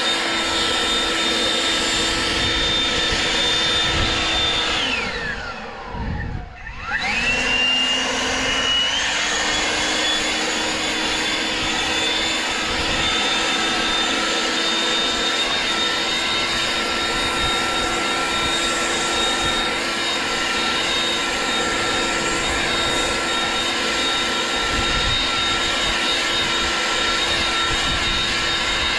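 Leaf blower running steadily with a high whine over a rushing of air. About five seconds in its pitch falls as it spins down almost to a stop, then it spins back up within a couple of seconds and runs on at full speed.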